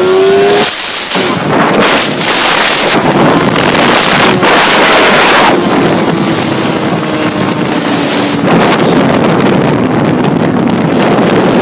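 Heavy wind buffeting on the microphone of a moving Honda CBR motorcycle, surging in gusts, with the engine's note faint underneath.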